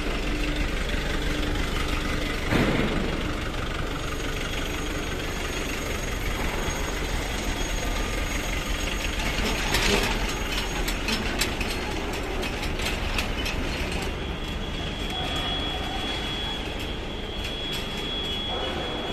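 Steady mechanical running noise, with scattered metallic clicks and clanks, most of them about halfway through, and a faint high whine near the end.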